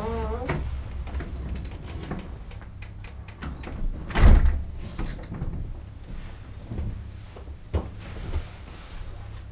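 A door shutting with a single heavy thud about four seconds in, followed near the end by a few lighter knocks and clicks.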